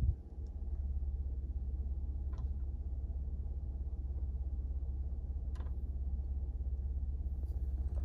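Steady low rumble of a parked 2022 Ford F-150 idling, heard inside the cab, with two faint clicks a few seconds apart.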